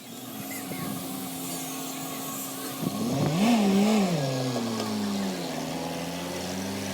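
An engine running steadily. About three seconds in it is revved up and down and grows louder, then it settles back to a steady run.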